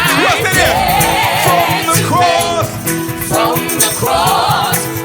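Live gospel worship music: a band with bass, drums and shaker playing while singers hold sung lines between the phrases of the song.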